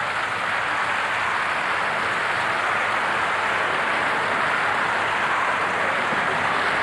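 Steady wash of noise in an indoor swimming-pool hall: swimmers splashing, mixed with crowd noise, with no single sound standing out.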